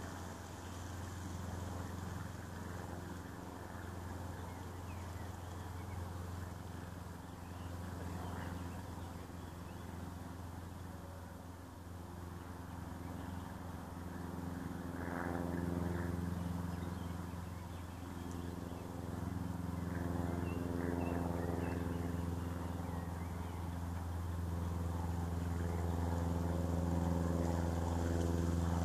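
A motor engine running with a steady low hum, its note growing louder from about halfway through.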